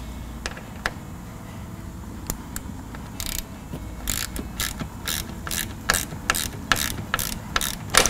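Hand ratchet with a Torx bit clicking as it turns a door hinge bolt: a few scattered clicks, then an even run of about three clicks a second from about three seconds in.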